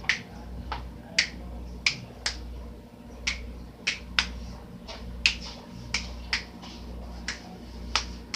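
A run of sharp, irregularly spaced clicks, about two a second, over a steady low hum.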